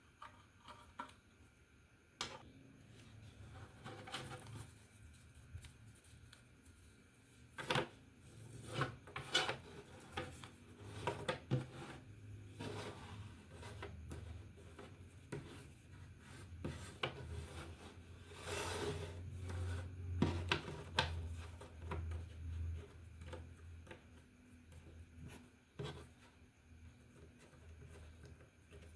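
Hands handling a toy puzzle and its packaging: scattered rubbing and rustling with light clicks and knocks, busiest in the middle stretch.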